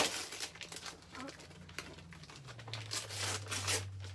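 Gift wrapping paper being torn and crumpled in several quick rips as a present is unwrapped, with a sharp knock at the very start.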